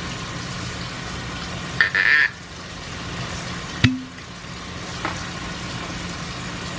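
Kitchen sounds over a steady hiss: a short squeaky rasp about two seconds in, then a sharp clink of a cup or utensil just before four seconds, and a faint tick a second later.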